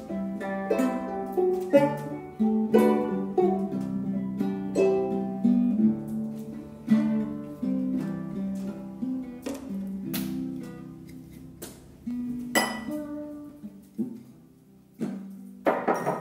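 An acoustic guitar and a small plucked string instrument playing together, picking out a tune of quick plucked notes that thins out after about twelve seconds, with a hard strum near the end.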